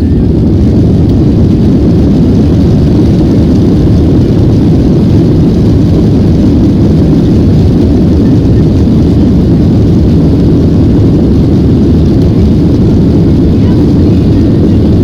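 Boeing 737-800's CFM56 jet engines at high thrust, heard from inside the cabin as a loud, steady low rumble with a rushing noise.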